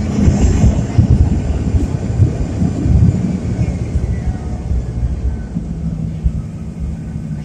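Jet airliner heard from inside the cabin during landing: a loud, uneven low rumble, with a short burst of hiss about a second in and a steadier hum later on.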